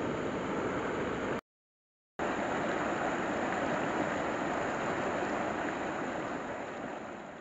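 Shallow rocky stream running over stones, a steady rush of water. It cuts out completely for under a second about a second and a half in, then comes back and fades out near the end.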